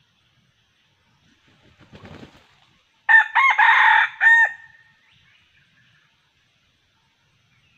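A junglefowl-hybrid rooster crows once, a short crow in several linked parts lasting about a second and a half and ending abruptly. A faint rustle in dry leaves comes about a second before it.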